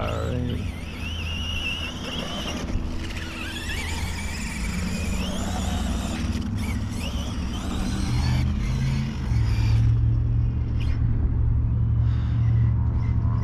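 Traxxas Sledge RC monster truck's electric motor whining, rising and falling in pitch with the throttle, and fading out after about seven seconds. Under it runs a steady low rumble that grows louder near the end.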